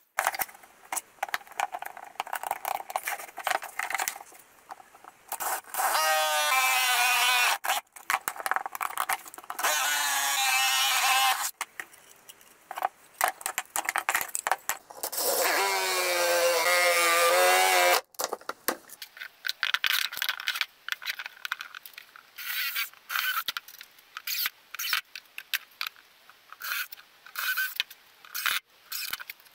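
Woodworking power tool running in three bursts of about two seconds each, its pitch sagging and shifting as it bites into pine. Between and after the bursts come many short knocks and clatters of wooden pieces being handled on the bench.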